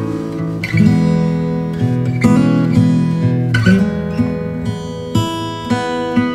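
Instrumental background music: plucked notes and chords that change about once a second.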